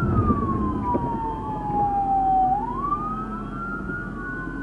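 Police siren on wail, its pitch falling slowly for about two and a half seconds and then rising again near the end. Underneath it there is a steady low rumble from the car driving across rough grass.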